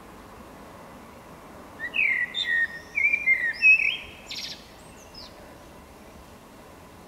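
Common blackbird (Turdus merula) singing one phrase of low, fluting whistles starting about two seconds in, ending in a short, high, scratchy twitter.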